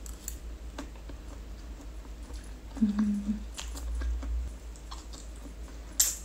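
Close chewing and eating sounds of a person eating roast turkey from a fork, with scattered small clicks. There is a short low hum about three seconds in and a sharper click near the end.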